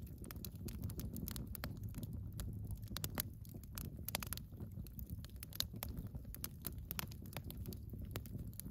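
Split-wood campfire crackling, with irregular sharp pops over a low steady rumble of the flames.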